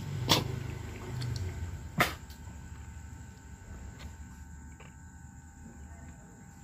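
Two sharp knocks about a second and a half apart, then a few fainter clicks, over a steady faint high-pitched drone.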